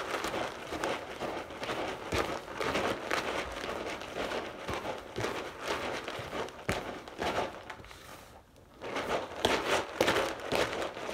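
A metal utensil mashing cat food in a plastic bucket: a rapid, irregular run of scraping and crunching clicks against the plastic, with a short pause about eight seconds in.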